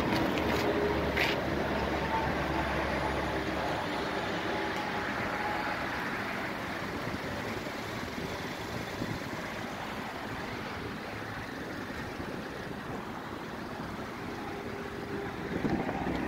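Steady outdoor road-traffic noise, an even hiss over a low hum, easing slightly in loudness, with a couple of light clicks in the first second or so.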